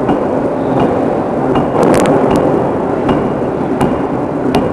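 Large forging hammer striking hot steel on its anvil: a run of sharp blows, roughly one every three-quarters of a second, with a louder clatter about two seconds in, over steady loud machine noise.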